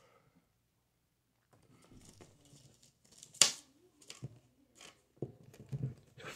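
Short, forceful breaths and light rustling from a person doing push-ups close to the microphone, starting about a second and a half in; the sharpest breath comes a little past the middle.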